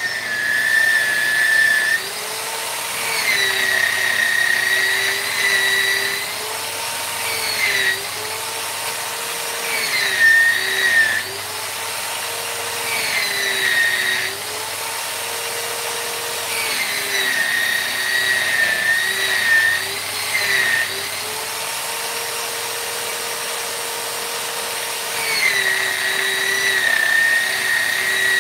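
High-speed rotary power tool running as a steady whine, its pitch dipping and recovering again and again, about every two to four seconds.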